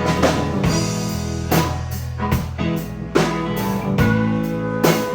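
A band playing an instrumental stretch of a song: guitar over bass and a steady drum beat, with no singing.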